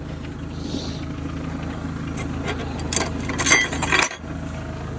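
Kubota L-series compact tractor's diesel engine running steadily at idle, with a run of metallic clanks and rattles from about two seconds in, loudest just before the fourth second.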